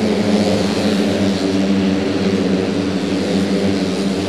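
A pack of racing automatic scooters with tuned 131cc engines running past together in a steady, even engine drone.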